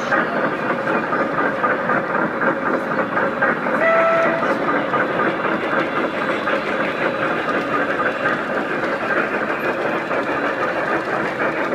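Large-scale model steam train running with its on-board sound, giving a short steam-whistle toot about four seconds in, over a constant busy-hall din.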